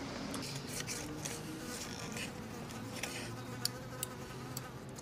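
A flying insect buzzing close by, its drone wavering in pitch, while a knife and fork clink and scrape on a ceramic plate as a steak is cut, with a few sharp clicks in the second half.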